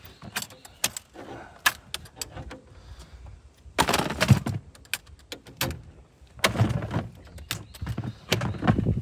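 Latched plastic cooler lid being handled, with latches and lid clicking and knocking and a few louder clattering thumps about four seconds in, around six and a half seconds, and near the end.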